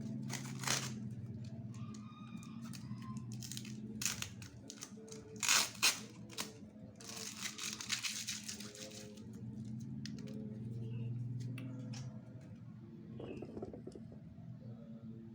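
Plastic packaging crinkling and being handled, with irregular sharp clicks and taps and a longer spell of rustling in the middle, over a steady low hum.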